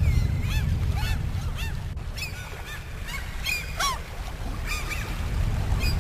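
A flock of waterbirds calling over open water: many short, arching honk-like calls in quick succession, with one louder falling call about four seconds in, over a steady low rumble.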